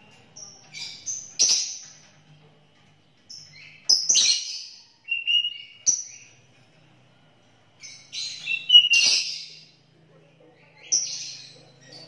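Caged sooty-headed bulbul (kutilang) singing: clusters of short, quick whistled notes in phrases every two to three seconds, with brief pauses between them and a few sharp clicks among the louder phrases.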